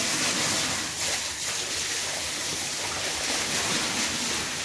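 Water running steadily into an eel-farming tank, an even rushing hiss.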